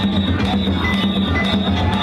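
Danjiri float's festival music (narimono): taiko drums and hand-struck gongs beaten in a continuous, steady rhythm.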